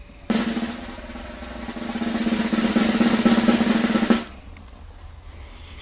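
Snare drum roll sound effect that starts suddenly, builds in loudness for about four seconds, then cuts off abruptly.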